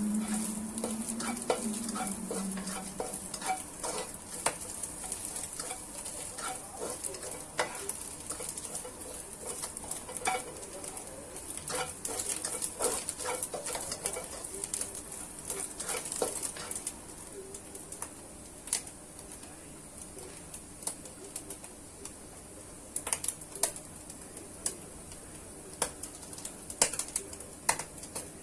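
Shredded dried scallops sizzling in oil in a pan while a plastic spatula stirs them, scraping and tapping against the pan. The clatter is busy for the first half and thins to occasional taps later.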